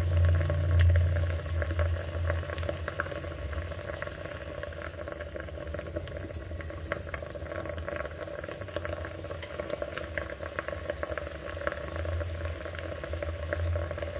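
Water boiling in an open steamer pot: a steady fine bubbling with a low hum under it, louder for the first couple of seconds and again near the end.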